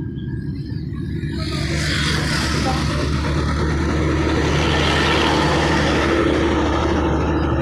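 Road traffic: a motor vehicle's engine humming steadily, with tyre and rushing noise that swells about a second and a half in and stays loud as it passes close by.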